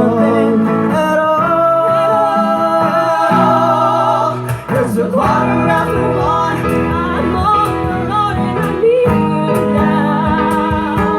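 Live band music: a singer's voice held over guitar and sustained chords, with a short break in the sound a little under halfway through.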